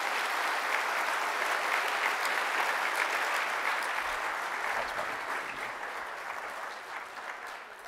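Audience applauding, the clapping steady at first and dying away over the last few seconds.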